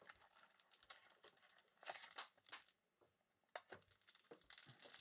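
Faint rustling and crinkling as a 2020-21 Obsidian Soccer card box is opened and its black foil-wrapped pack handled, in short scrapes and small clicks.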